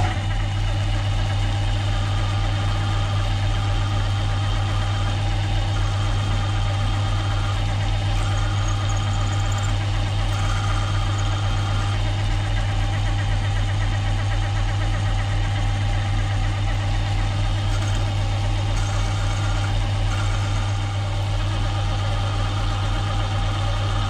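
Milling machine motor and spindle running steadily, turning a 1/8-inch drill as it feeds down through a steel flywheel into the crankshaft beneath.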